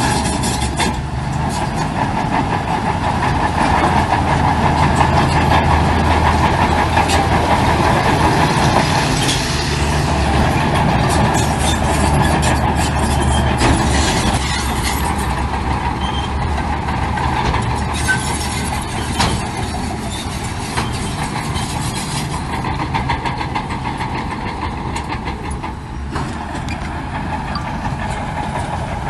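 Heavy diesel earthmoving machinery running steadily, with scattered clanks and rattles of metal and stone.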